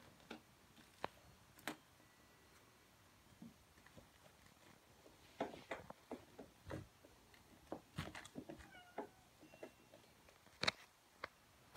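A black kitten playing, heard as scattered light taps, clicks and scuffles of its paws and claws on a shaggy bath mat and wooden floor, with a sharper knock near the end.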